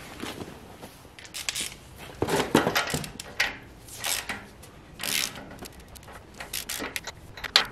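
Hand wrench turning a brass fitting into an engine's front cover: a handful of short, irregular metallic rasping strokes.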